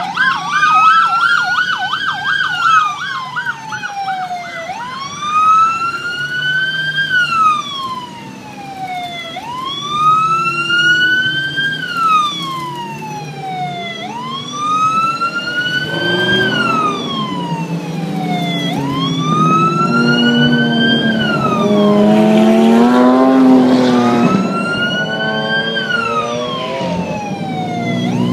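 Police siren wailing, rising and falling about every four and a half seconds, with a fast yelp at the start. From about halfway through, Lamborghini engines rev underneath it, loudest between roughly twenty and twenty-five seconds in.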